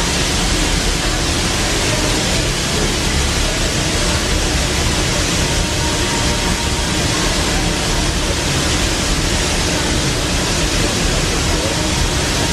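Steady, loud hiss of steam escaping from a standing steam locomotive, an even rush of noise that does not change.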